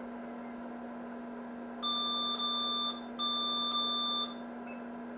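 IBM XT/286's internal PC speaker giving two long beeps of about a second each, a short gap between, over a steady low hum. The beeps come as Windows 2.1 fails to load and its splash screen fills with garbled text; this old Windows version does not work under DOS 6.22.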